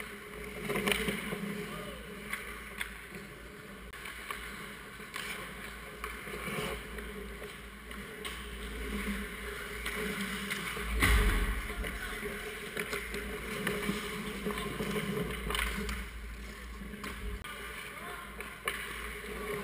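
Ice hockey play picked up from the goal: skate blades scraping and carving the ice, sticks and pucks clacking, and players calling out. A louder knock with a dull thud comes about eleven seconds in.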